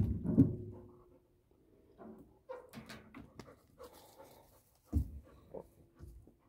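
Labrador retriever whining in short, pitched bursts, eager to get into a tub of water to swim.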